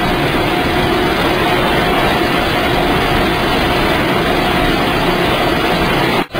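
Organic-waste drying machinery running: a steady, loud mechanical noise with a constant hum, dropping out for an instant near the end.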